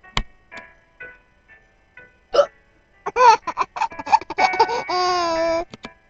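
A woman's sharp hiccup near the start, then a six-month-old baby laughing in a quick run of short chuckles from about three seconds in, ending in a held high-pitched squeal.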